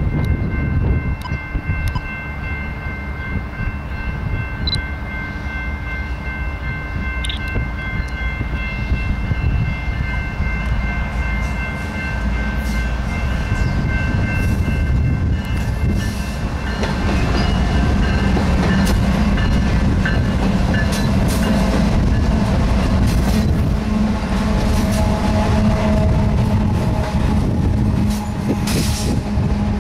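BNSF double-stack intermodal freight train passing close by: the diesel locomotives go by first with a low rumble and a steady high whine. From about halfway on, the train grows louder as the double-stack well cars roll past, their wheels clicking over the rail joints with some ringing from the wheels.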